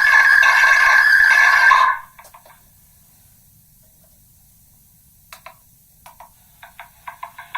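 Megaphone playback of a spoken phrase that has been re-recorded through megaphones so many times that it has eroded into a harsh, distorted buzz. The buzz cuts off sharply about two seconds in. After a quiet pause, short clicks and bursts come faster and faster near the end.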